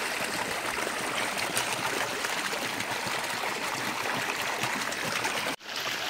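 Water running and trickling steadily in a small stream, with a brief drop-out near the end.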